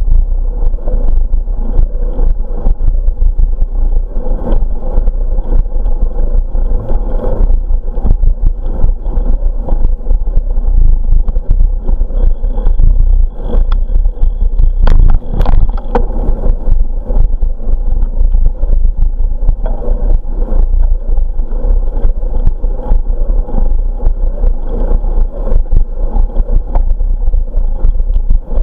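Steady low wind buffeting and rolling rumble on a bicycle-mounted camera's microphone as the bike rides along a smooth asphalt path. A few sharp knocks come about halfway through.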